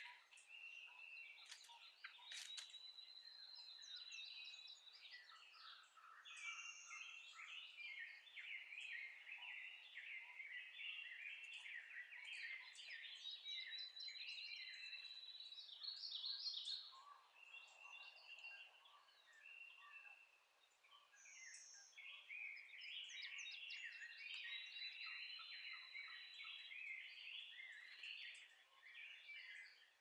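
Faint dawn chorus of several songbirds singing at once around a pond. One bird repeats a long, thin, high whistle about every ten seconds, three times in all.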